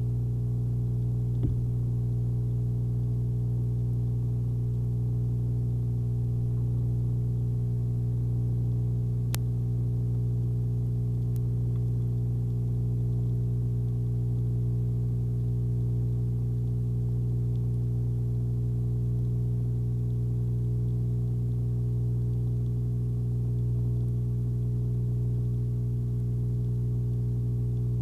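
Steady electrical hum with a stack of overtones, unchanging throughout, with one faint click about a second and a half in.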